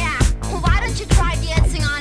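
Upbeat electronic dance music with a steady drum beat and a sliding synth melody.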